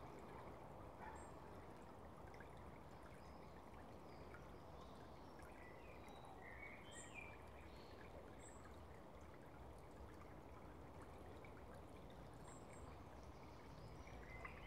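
Faint steady rush of a shallow stream running over stones, with a few faint high chirps partway through.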